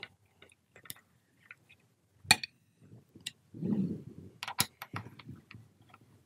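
Irregular light metallic clicks and taps from a hand driver turning the bolts as a gearbox is tightened down onto a valve body, with a brief soft rustle of handling about halfway through.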